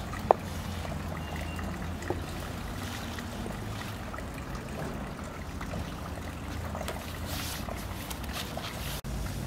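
Long thin wooden rolling pin rolling thin dough sheets over a wooden board, an even rolling and rustling with a couple of sharp taps of the pin in the first few seconds. A steady low hum runs underneath.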